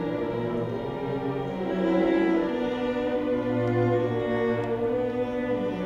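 Cello playing slow, sustained bowed notes with violins of a string orchestra; classical music, the notes held and changing about once a second.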